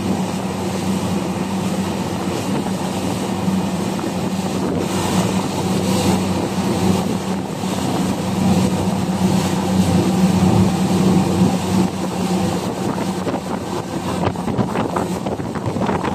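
Motorboat engine running steadily at speed, with wind buffeting the microphone; the buffets become more frequent near the end.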